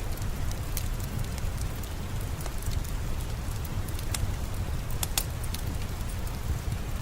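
Steady falling rain with a low rumble underneath, and a wood fire crackling with scattered sharp pops, a few close together about five seconds in.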